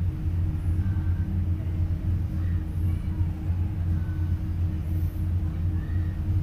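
Towboat's diesel engines running steadily, a low even drone heard from inside the pilothouse, with a few faint high chirps now and then.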